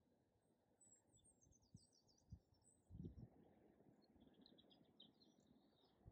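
Near silence: faint small-bird chirps and trills over a low outdoor hush of wind and river, with a few soft low knocks.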